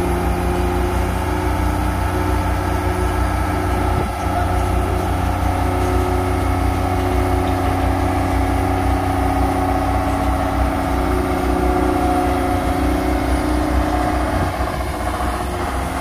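Diesel engines of crawler excavators running steadily, several engine pitches layered over a low rumble.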